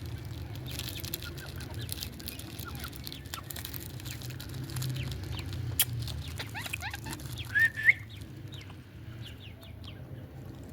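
Indian ringneck parrot chattering in short chirps, with one loud rising squawk near the end, over a steady low hum.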